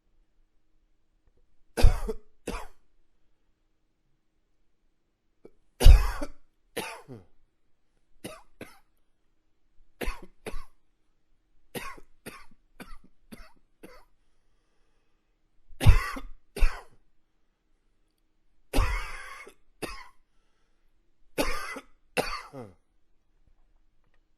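A man coughing in repeated bouts of two or three coughs every few seconds, some bouts loud and others weaker.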